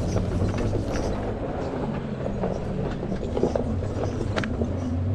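Electric ATV creeping slowly over sand and gravel, its tyres crunching with a stream of small irregular clicks and rattles, over a steady low drone from a motorcycle engine running in the background.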